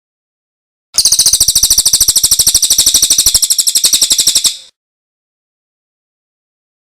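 Recorded song of a small songbird: a rapid, even trill of high repeated notes, about a dozen a second, starting about a second in and fading out after three and a half seconds.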